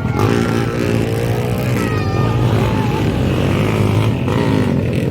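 Motocross motorcycle engines running and revving at race speed, their pitch rising and falling.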